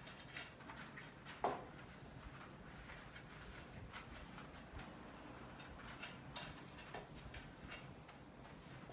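A few faint, scattered clicks and knocks from hands and tools working on a bicycle, with one sharper knock about a second and a half in.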